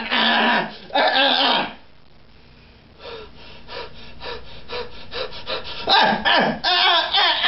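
A puppeteer's voice making drawn-out groans, then a quick run of short gasping breaths at about four a second, then louder groans near the end. These are the mock death throes of a puppet struck in the sword fight.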